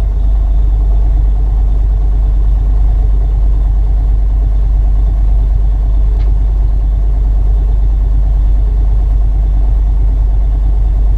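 Semi truck's diesel engine running steadily at idle during a parked DPF regeneration that has just begun, a constant deep rumble.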